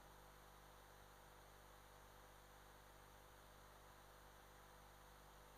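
Near silence: only a faint, steady electrical hum.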